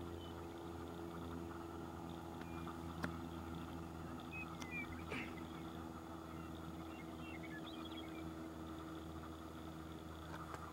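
A steady low mechanical drone, like a distant engine, with faint short high chirps scattered over it and a single sharp click about three seconds in.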